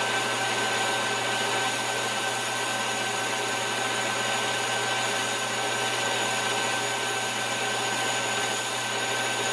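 Chinese mill-lathe combination machine running steadily, its spindle turning a metal chuck back plate while a brazed carbide tool takes a light 1.5-thousandth finishing cut on the register surface. A steady high whine sits over the machine's hum.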